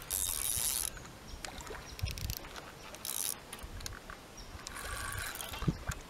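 Fishing reel being wound in short spurts while a hooked carp is brought in. There are three brief hissing bursts, the first the loudest.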